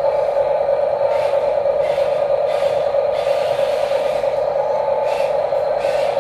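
Steady whirring of the small electric motors and plastic gearboxes in RC construction models, with a few short harsher spells of gear noise.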